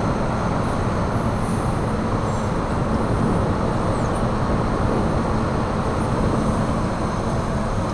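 Cruise ship Carnival Glory's machinery giving a steady low rumble with a hum as it moves out under way close by.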